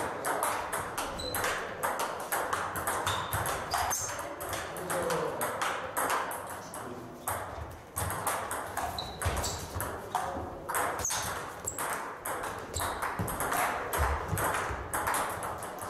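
Table tennis balls clicking off bats and the table in a fast, irregular rally, with clicks from neighbouring tables overlapping. Short high squeaks of sports shoes on the wooden floor come in now and then.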